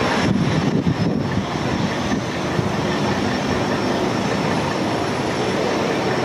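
Boeing 747-400's four GE CF6-80C2 turbofan engines at climb power as the jet climbs away after takeoff: a loud, steady, rumbling roar.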